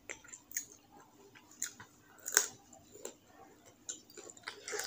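A person eating rice and curry by hand: chewing with soft wet smacks, and fingers mixing the food on a ceramic plate. Short clicks come at irregular intervals, the sharpest about two and a half seconds in.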